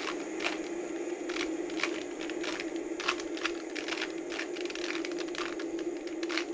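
Plastic 2x2 Rubik's cube being turned fast during a solve: a run of quick, irregular clicks, several a second, over a steady low hum.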